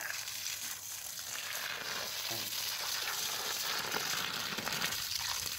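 Water from a garden hose spraying onto leafy plants and soil: a steady hiss that grows a little louder about a second in.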